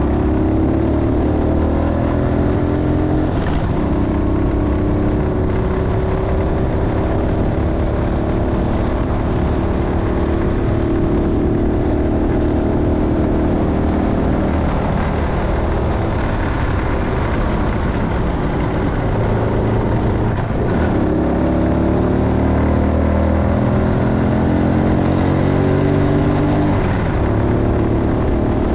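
Motorcycle engine running under way, its pitch rising and falling several times as the rider speeds up, changes gear and slows, over a rough rumble of wind noise.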